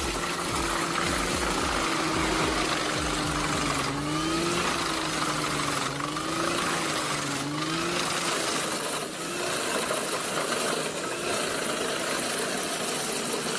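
Wood chipper's engine running steadily, its note dipping and recovering several times as wood is fed through. Short sharp cracks of wood being chipped come every second or two.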